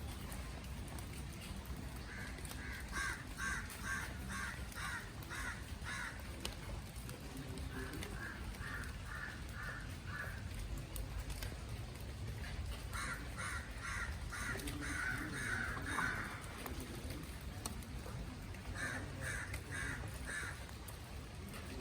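Crows cawing in four runs of quickly repeated calls, a few calls a second, with pauses between the runs.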